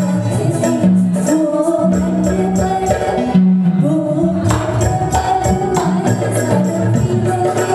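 Live band music: a woman singing into a microphone over a steady beat of hand drum and percussion, with sustained bass and melody notes from guitar and keyboard.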